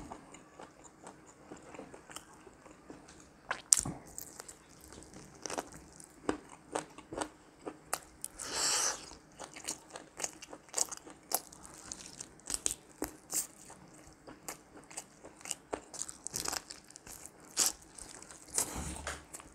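Close-up eating sounds: biting into and chewing roasted chicken and momos, with many short wet clicks and smacks from mouths and fingers. There is one longer hissing noise about nine seconds in.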